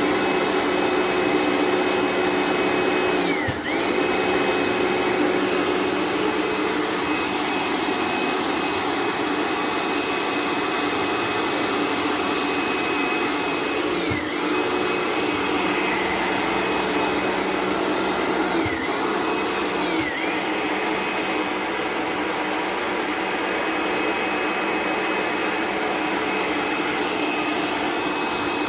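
Electric machine motor running steadily with a constant whine. Its pitch sags briefly about four times, as if it were momentarily loaded.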